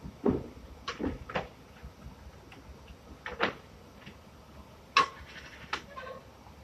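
Manual cutting fixture chopping rubber extrusion strips on a metal work table: about six sharp, irregular clacks as the blade comes down and the strips are shifted.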